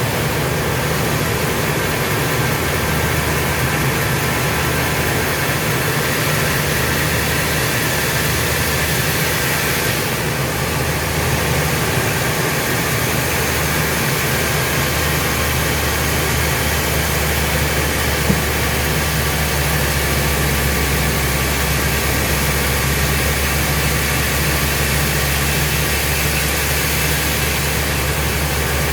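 Sawmill machinery running steadily: a low engine hum with a constant hiss over it, and a single faint tick partway through.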